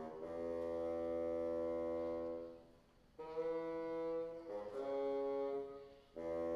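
Small chamber ensemble of wind and brass instruments playing slow, sustained chords: one long held chord, a brief pause, then three more held chords.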